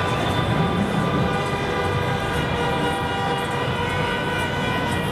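Several horns sounding together and held steadily, layered into a dense chord of tones over a low rumble of idling traffic.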